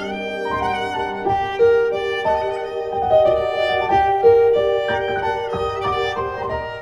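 Kamancha, a bowed spike fiddle, playing a melody with sliding notes, over an electronic keyboard playing sustained notes.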